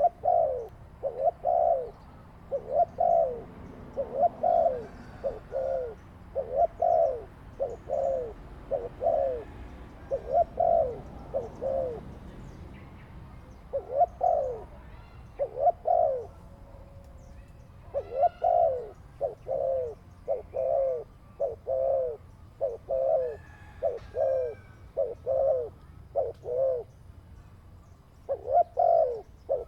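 Dove cooing: a long run of short, repeated coo notes, about one and a half a second, broken by two brief pauses.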